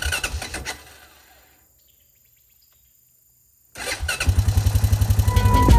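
A small engine running with a rapid low pulsing beat, fading away within the first two seconds. Near the end, a similar rapid pulsing starts up again loudly, and music comes in over it.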